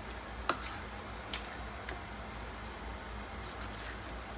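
Chef's knife trimming fat from raw chicken thighs on a plastic cutting board: a few sharp taps of the blade against the board, over a steady low hum.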